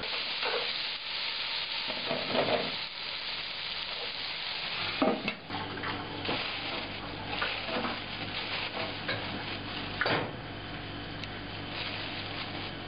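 Chopped tomatoes and onions sizzling as they fry in a pot, with a spoon stirring through them. A steady sizzling hiss throughout, with a few louder scrapes.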